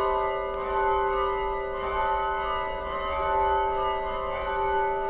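A steady, bell-like chord of several held tones that rings on without fresh strikes, swelling gently in loudness.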